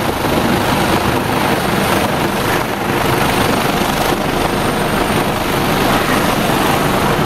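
Rescue helicopter hovering close by, its rotor beating rapidly and steadily over a loud, even engine noise.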